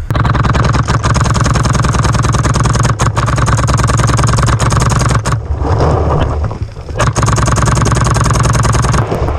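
Electronic paintball markers firing fast, continuous strings of shots that blur into a rattling buzz, with a break of about a second and a half past the middle before the firing starts again.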